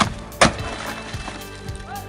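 Two sharp knocks about half a second apart, the second louder, over steady background music.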